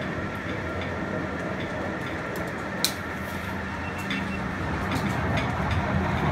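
Salzburg Festungsbahn funicular car running down its rails toward the lower station: a steady rumble that grows louder as it approaches, with a single sharp click about three seconds in.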